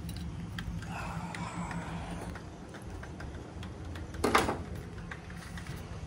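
Ratchet wrench clicking as a socket works a bolt, with one louder knock about four seconds in, over a steady low hum.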